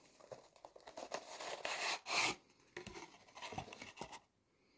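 Cardboard knife boxes and packaging being handled: irregular rustling and scraping, loudest about two seconds in, dying away after about four seconds.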